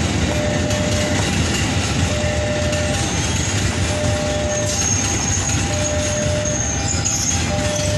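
Electric commuter train running past with a steady rumble and rail noise, and a thin high wheel squeal from about five seconds in. Underneath, a two-note tone alternates evenly, each note lasting about a second.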